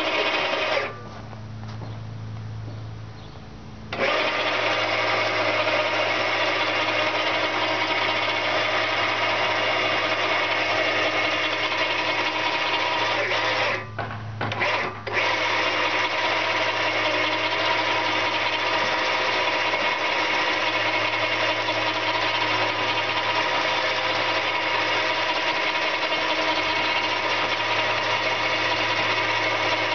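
Electric winch motor running steadily with a whine, hauling the boat's launch line. It stops about a second in, starts again about four seconds in, and cuts out briefly once near the middle.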